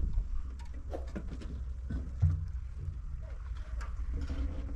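Low steady rumble of wind on the microphone, with scattered light taps and a brief low hum a little over two seconds in.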